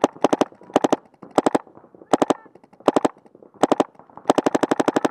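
Paintball marker firing in short rapid strings of several shots each, one string after another about every half second to second. The shots are sharp and close.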